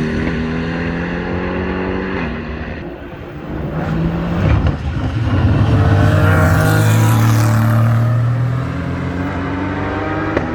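GT3 race cars passing at speed under power. One car's engine note fades in the first few seconds, then another approaches and is loudest about six to eight seconds in before pulling away.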